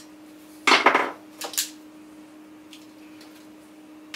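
AR-15 rifle being 'shotgunned': the rear takedown pin pushed out and the upper receiver swung open on its front pivot pin, a metallic clatter about a second in followed by two sharp clicks and a few faint ticks.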